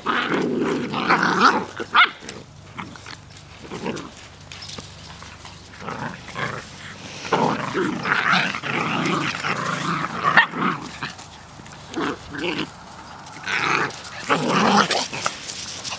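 Puppies play-fighting, growling and yipping in short bursts with quieter stretches between.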